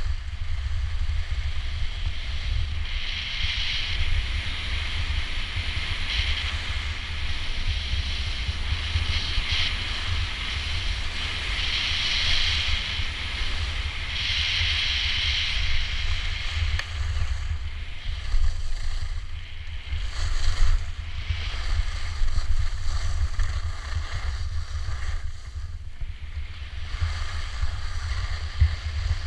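Wind buffeting the microphone, under the hiss and scrape of skis sliding over snow, the hiss swelling several times in the first half.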